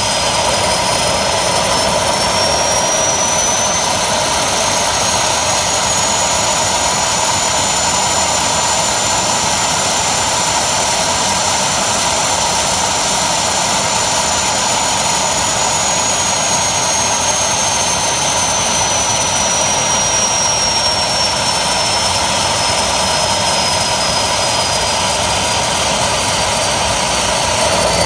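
Homemade turbocharger turbojet running on a test stand: a loud, steady rush with a high turbine whine. The whine rises a few seconds in, holds, then falls away through the second half, and begins to rise again near the end, as the engine spools up and down.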